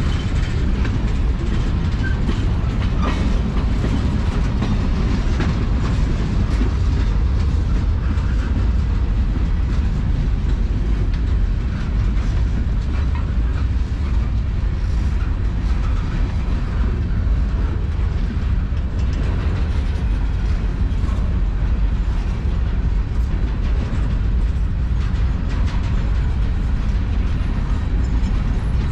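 Freight cars of a long manifest train rolling slowly past: a steady low rumble of steel wheels on rail, with faint scattered clicks.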